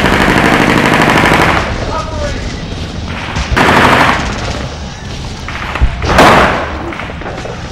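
Gunfire: a rapid machine-gun burst lasting about a second and a half, a shorter burst about three and a half seconds in, and a single loud shot about six seconds in.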